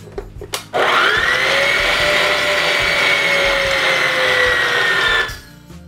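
Electric stand mixer with a wire whisk beating butter, sugar and eggs in a steel bowl. The motor starts about a second in with a quickly rising whine, runs steadily with the pitch easing slightly lower, and stops shortly before the end.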